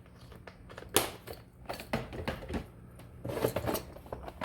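Small irregular clicks and taps of jewelry-making tools and supplies handled on a work table, the sharpest about a second in.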